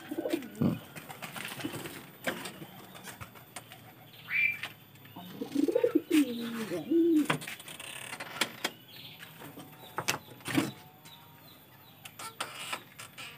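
Domestic pigeons cooing, with one long warbling coo about halfway through, amid sharp knocks and clatter from the wooden doors of a pigeon loft's compartments being opened.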